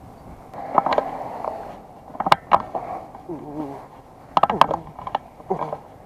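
Handling noise: a string of irregular sharp clicks and knocks, with a brief snatch of a voice in the middle.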